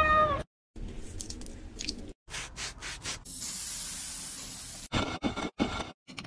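A cat's short meow with falling pitch right at the start. Then light taps and clicks, and a steady hissing rattle of small sugar sprinkles poured from a plastic scoop onto a hard surface for about a second and a half, followed by a few more light taps.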